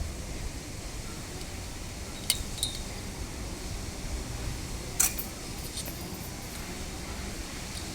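A few sharp metallic clinks: two close together a little over two seconds in, a louder one about five seconds in and a fainter one just after. Under them runs a steady low rumble.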